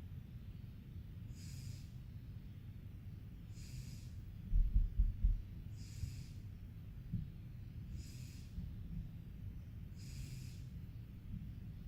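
A sleeping cat snoring: a soft, hissy breath about every two seconds, five in all. A few loud low thumps come about four and a half seconds in.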